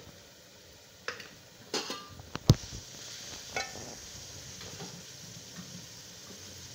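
A spoon knocks and clinks against a cooking pot a few times, with one sharp knock about two and a half seconds in. Then comes a steady sizzle of the onion, tomato and keema masala frying in the pan.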